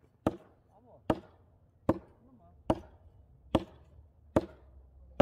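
Axe chopping firewood: a steady series of sharp, evenly spaced strikes, a little more than one a second.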